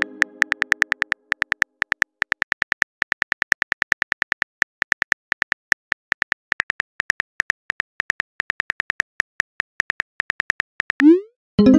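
Rapid keyboard-tap clicks of a texting app's sound effects as a message is typed out letter by letter. Near the end a short rising swoosh and a pitched pop mark the message being sent.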